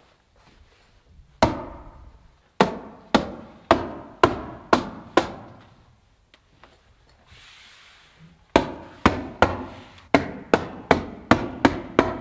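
Hammer tacker stapling 30-pound roofing felt to a wall: sharp single strikes, about two a second. There are seven strikes, a pause of about three seconds, then about ten more that come faster toward the end.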